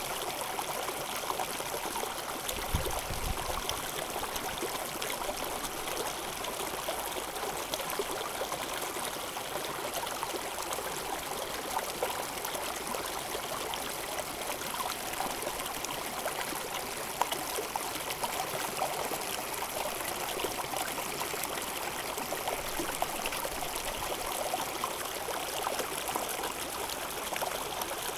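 Mountain torrent: fast-flowing stream water rushing steadily, with a brief low rumble about three seconds in.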